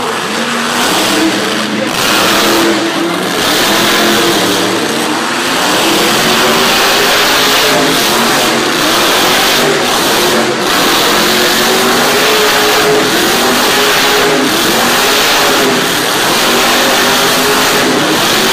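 Monster truck's supercharged V8 revving hard, its pitch rising and falling again and again as the truck spins in the dirt.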